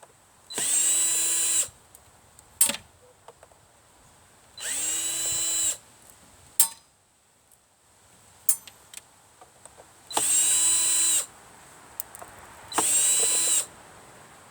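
Power drill driving out screws in four short runs of about a second each, each spinning up quickly to a steady whine. Scattered small clicks and knocks of metal parts being handled between the runs.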